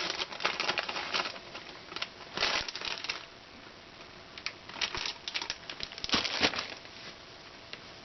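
Hands rustling and clicking through small plastic parts and tubing in irregular clusters, busiest in the first three seconds and again around the middle, with a quieter pause between.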